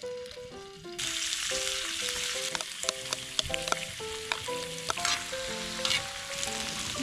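Food frying in a hot pan, a sizzle that starts suddenly about a second in, with scattered small clicks and pops. Background music with a melody of short steady notes plays throughout.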